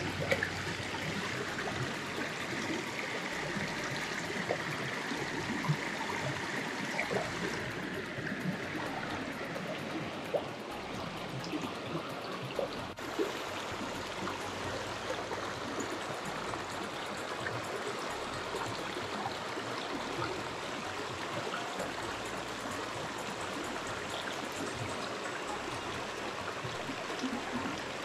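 A shallow mountain stream running steadily over rocks and gravel, with a few light ticks in the first half.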